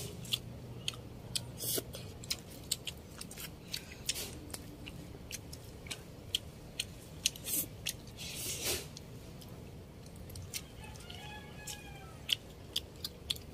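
Close-up eating sounds of people eating rice and crab by hand: chewing with many short wet lip smacks and mouth clicks, and one longer, louder smack about eight and a half seconds in.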